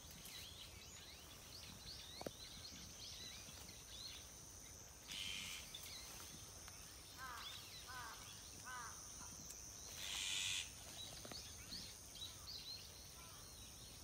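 Faint countryside ambience of small birds calling: short chirps repeated in quick groups of three or four, with two short harsh rasping bursts about five and ten seconds in, the second the loudest.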